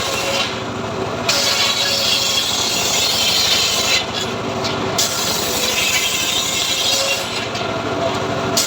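Homemade engine-driven sawmill cutting teak wood: a steady machine running under a high, rasping sawing noise, which drops away briefly three times, about half a second in, at four seconds and near the end.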